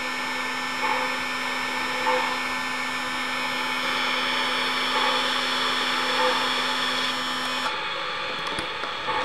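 MTH RailKing Union Pacific Big Boy O-gauge model steam locomotive running along the track, giving a steady hissing whir with a low hum underneath. The hum stops near the end.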